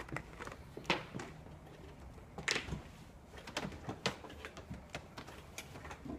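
Scattered light knocks and clicks, irregularly spaced, the loudest about two and a half seconds in.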